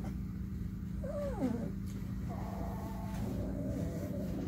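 Newborn puppies whining: a short whimper that falls sharply in pitch about a second in, then a longer, steadier whine, over a constant low hum.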